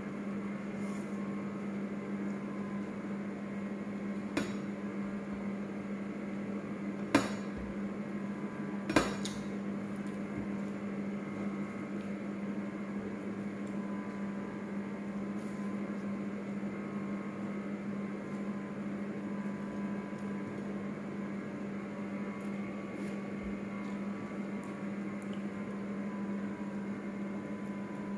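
A steady low hum with a few sharp clinks of ceramic plates and dishes as food is picked up by hand, the two loudest clinks about seven and nine seconds in.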